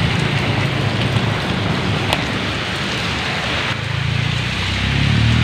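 Heavy rain pouring down steadily, an even hiss of downpour on the road and surroundings, with a low rumble underneath.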